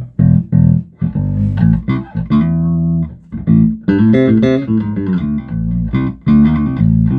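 Electric bass guitar played through a Mesa Boogie Subway D800 bass amp head: a loud run of plucked notes and short phrases, some quick and some held. Its tone comes across as a little honkier and more crunchy, with less warmth.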